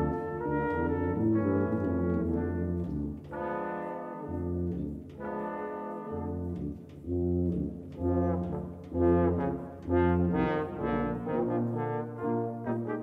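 Brass quintet of two trumpets, French horn, trombone and tuba playing chamber music. The tuba holds low notes beneath the upper parts, and the second half turns to short, detached rhythmic figures.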